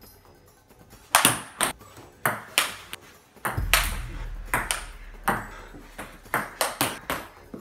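Table tennis rally: the plastic ball clicking sharply off paddles and the table, a quick, slightly uneven run of hits, about two to three a second, starting about a second in.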